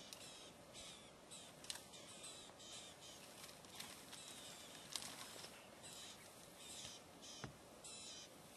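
Faint bird calls chattering about twice a second over quiet bush ambience, with three sharp clicks: one about two seconds in, one near the middle and one near the end.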